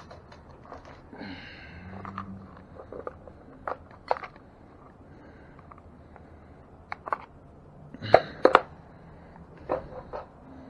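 Scattered sharp clicks and knocks of tools and parts being handled while working on an e-bike's rear disc brake caliper and pads, the loudest pair about eight seconds in.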